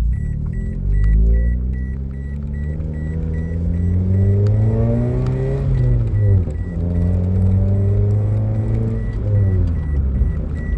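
The 2007 Toyota Corolla's four-cylinder engine heard from inside the cabin, pulling through the gears: its pitch climbs steadily for several seconds, drops as it shifts up about halfway through, holds, then drops again near the end. A faint high beep repeats steadily throughout.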